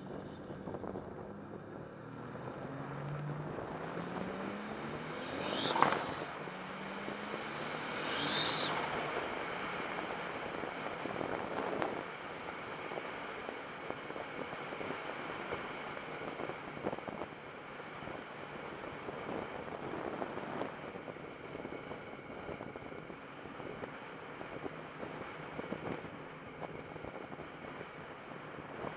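Turbocharged car engine revving up twice, each rev ending in a short, sharp, hissing whoosh that climbs in pitch; the first is the loudest sound. Then a steady running and wind noise follows, with a few fainter hisses. This is the unusual turbo noise under investigation.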